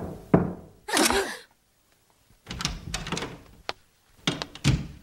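A door being opened, with several knocks and thuds and a scraping stretch in the middle, then a few sharp footstep-like clicks near the end.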